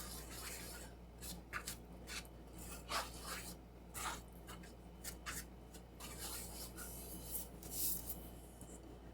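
Spoon stirring and scraping a thick cake batter in a dish: faint, irregular scrapes with light clinks, a few louder strokes about three and four seconds in.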